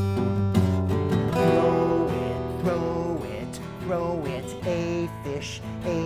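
Acoustic guitar strummed in a song accompaniment. From about a second and a half in, a wavering, sliding melodic line sits on top of the chords.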